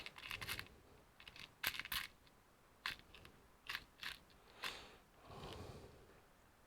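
Light clicks and clacks of small screws, a screwdriver and laptop plastic parts being handled, about half a dozen sharp taps, then a short soft scraping near the end, while a screw is fitted to hold a loose DC jack.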